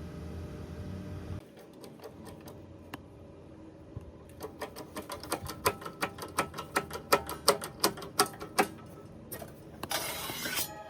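A quick run of sharp mechanical clicks, several a second, lasting about four seconds in the middle, after a short low hum at the start.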